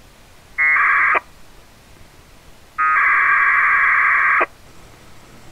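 Two bursts of packet-radio data tones, a short one of about half a second and then a longer one of about a second and a half, each starting and cutting off abruptly.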